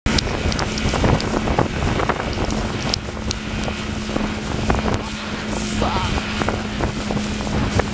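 Wind buffeting the microphone and spray hissing and slapping on the wake while a banana boat is towed at speed, over the steady hum of the towing speedboat's engine.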